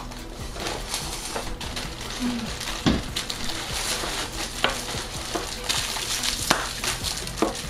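Plastic freezer-pop sleeves crinkling and rustling as they are handled and opened, with a few sharp clicks and taps.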